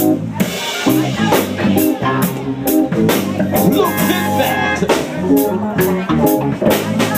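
Live rock band playing: drum kit with a steady beat of cymbal and drum strokes under electric guitars.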